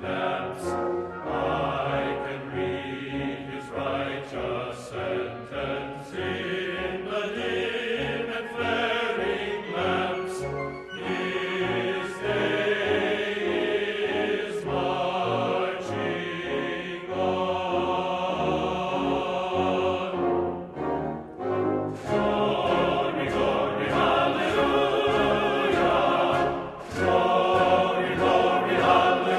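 Background music: a choir singing with orchestral accompaniment, dipping briefly about two-thirds of the way through.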